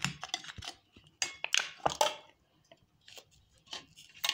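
Thin plastic pâté tub and its foil lid crinkling, with light knocks and clinks against a ceramic saucer as the pâté is turned out of the tub. The sound is an uneven run of short crackles and knocks, busiest from about one to two seconds in.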